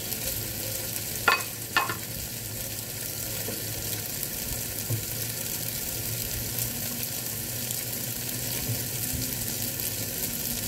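Tofu cubes sizzling steadily as they fry in hot oil in a nonstick pot, with two sharp knocks about a second in.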